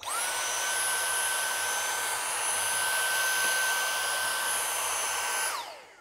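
Cordless Dyson handheld vacuum with a crevice tool, vacuuming lint out of a tumble dryer's filter housing. It is switched on, its motor whine rising quickly to a steady high pitch over a rush of air. Near the end it is switched off and the whine falls away as the motor spins down.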